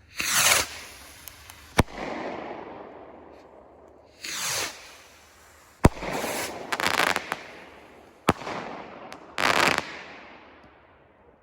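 Consumer firework rockets (Cannon Fireworks Mortal Rockets) being set off one after another: four rushing whooshes and three sharp bangs, each bang trailing off in a long echoing rumble.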